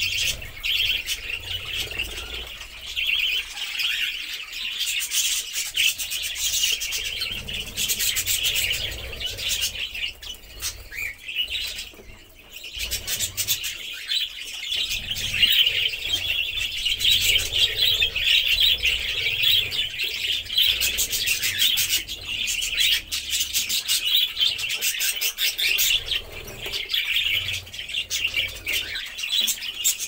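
A flock of budgerigars chirping and chattering continuously, a dense mix of overlapping chirps and fine rapid clicks that thins out briefly about ten to twelve seconds in.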